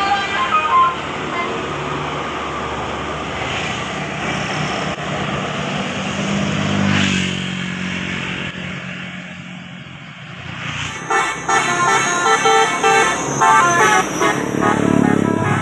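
A bus passing with engine and road noise, then, from about eleven seconds in, a bus's telolet horn: a multi-tone musical air horn playing a loud, rapidly changing melody of several notes.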